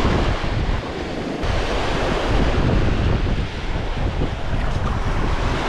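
Lake waves washing onto a stony beach, with wind buffeting the microphone.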